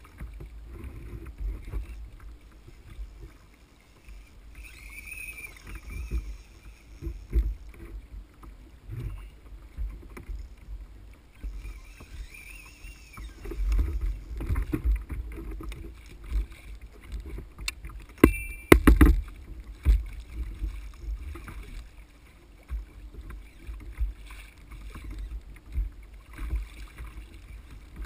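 Ocean water sloshing and slapping against a kayak hull, heard as uneven low bumps through the kayak-mounted camera, with a short cluster of sharp knocks about two-thirds of the way through.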